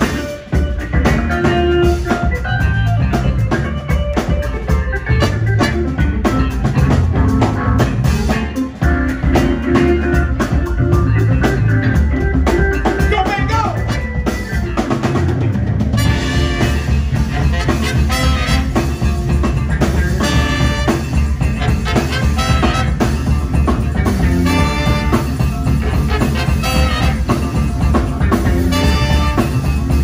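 Live band playing an instrumental passage over a steady drum-kit beat, with the organ to the fore; the sound grows fuller about halfway through.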